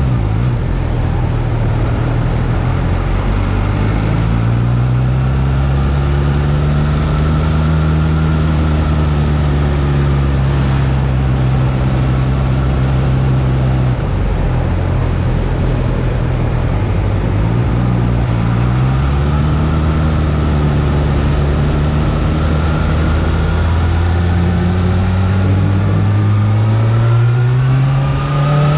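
Yamaha R6's inline-four engine on its stock exhaust, its pitch climbing and easing back over several seconds at a time as the revs build and fall. There is a short drop about halfway through and another climb near the end.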